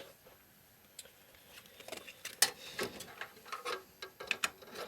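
Irregular clicks and taps of cables and plastic connectors being pressed into place inside a desktop PC case, with one sharper click about halfway through.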